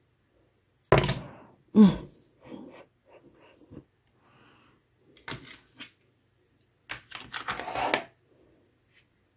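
Plastic StazOn ink pad being dabbed and tapped against a clear stamp on an acrylic block: a run of hard plastic knocks and clicks, two loud ones about a second in, then lighter taps, and a quick cluster of clicks near the end as the pad is handled.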